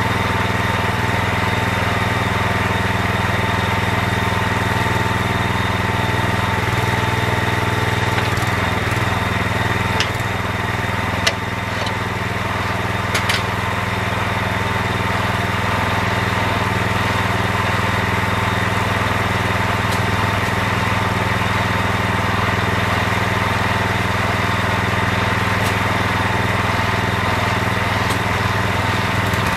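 Small engine running steadily, driving a homemade hydraulic water-well drilling rig as it drills, with a few brief knocks partway through.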